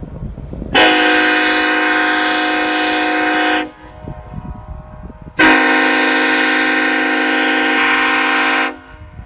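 Nathan Airchime five-chime locomotive air horn (K5HL or K5LLA) blown in two long blasts of about three seconds each, a deep steady chord that cuts off sharply each time.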